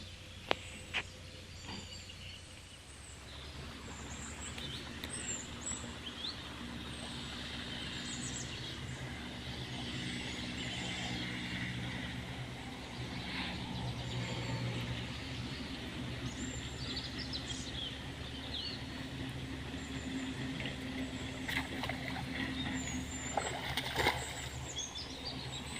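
Small birds chirping and calling repeatedly over a steady low engine-like hum, with a few knocks near the end.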